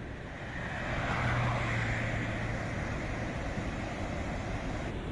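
Steady rush of the flooded wadi's muddy water. A motor vehicle passes about a second in, its engine hum and tyre noise swelling and then fading over a couple of seconds.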